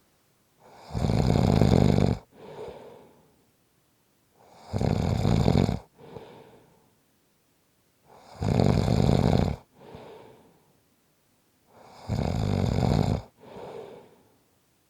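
A sleeping person snoring in a slow, even rhythm: four loud, rasping snores about every three and a half to four seconds, each followed by a shorter, softer breath.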